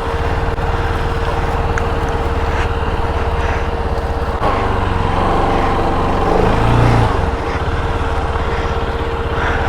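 Bajaj Pulsar RS200's single-cylinder engine running, with a steady whine over a low rumble; its note changes for a few seconds about halfway through.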